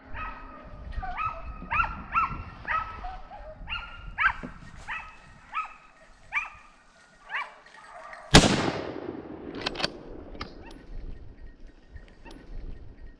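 Hunting dogs barking repeatedly on a wild boar hunt, about a dozen barks, then a single loud rifle shot about eight seconds in, ringing out across the scrub, and a fainter crack about a second and a half later.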